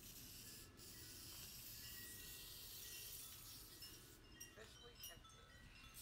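Near silence: faint background hiss with a few faint, short high tones and soft clicks.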